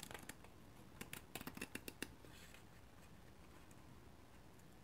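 Fabric scissors snipping through Aida cloth, quiet and crisp: a couple of snips at the start, then a quick run of them a second or so in.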